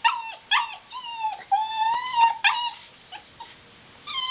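Black Labrador puppy whimpering and whining in a quick run of short, high, falling cries, with one longer held whine about a second and a half in, then a pause before the cries start again near the end. The whining is the puppy's fear of going down the stairs.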